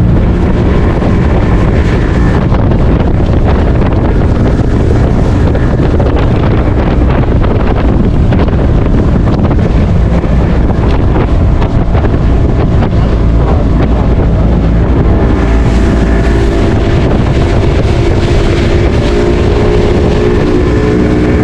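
Motorboat engine running steadily at speed, with wind buffeting the microphone; a steady hum comes up over it about fifteen seconds in.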